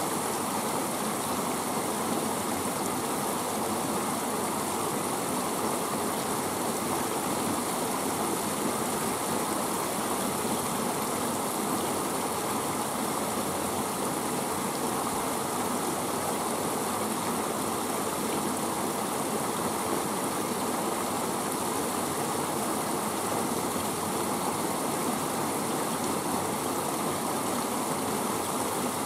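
Flowing river water: a steady, even rush that does not change.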